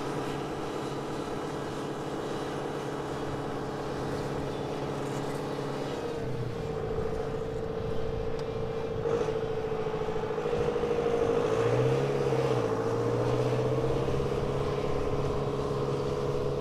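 A vehicle engine running steadily under load as a farm tractor tows a mud-stuck car out of a roadside ditch with a strap. About a third of the way in the sound changes, and it grows louder with a brief wavering in pitch about two-thirds through.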